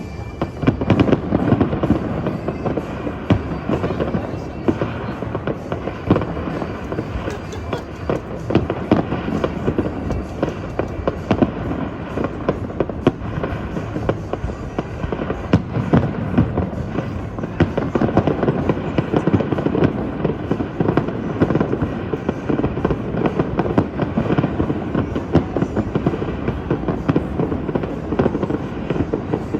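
Aerial fireworks bursting in a dense, continuous barrage of bangs and crackles, with loud peaks scattered all through.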